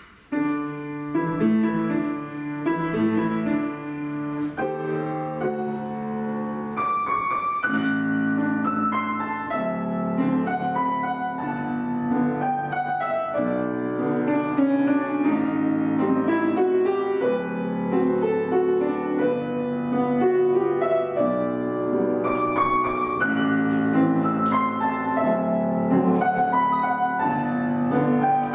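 Piano playing classical ballet-class accompaniment for an exercise at the barre, starting just after the beginning and running on in a steady flow of chords and melody.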